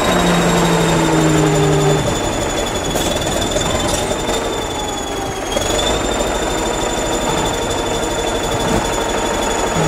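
Diesel engine of a crawler bulldozer running close by: a loud, steady clattering drone with a high whine over it. The whine dips briefly about halfway through.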